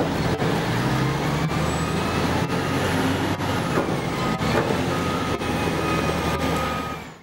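Large wheeled log loader's engine running as the machine drives, a steady low drone with faint regular ticks; a high steady whine joins about four seconds in, and the sound fades out near the end.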